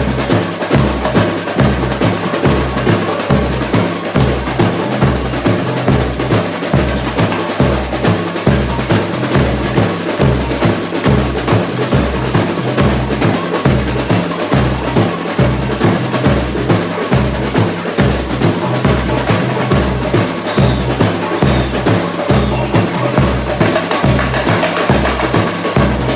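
Samba bateria drumming: surdo bass drums beat a steady low pulse under dense, rapid snare and small-percussion rhythms.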